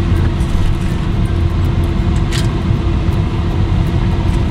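Steady low rumble and hum inside a parked car, with one steady tone held through it. A brief rustle or hiss about two seconds in.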